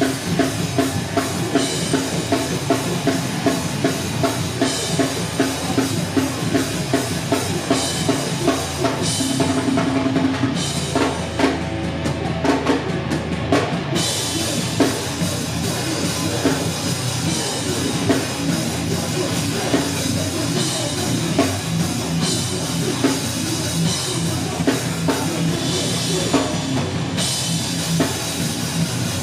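Live heavy rock band playing loud, with a pounding drum kit. About ten seconds in the cymbals drop out for a few seconds, then crash back in.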